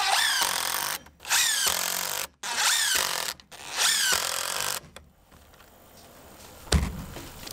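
Craftsman cordless impact driver driving SD connector screws through a galvanized hurricane-tie bracket into a wooden double top plate, in four short runs with brief pauses between screws. A single sharp knock near the end.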